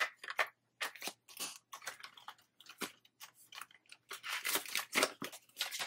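Hands handling a clear plastic zipper pouch in a cash binder, with the paper bills and challenge sheet inside it: irregular crinkling and rustling in short, uneven strokes.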